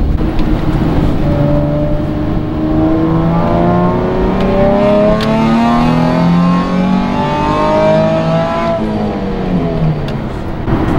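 Nissan Fairlady Z (Z33) 3.5-litre V6 engine accelerating, heard from inside the cabin: its pitch climbs slowly for several seconds, then falls away near the end.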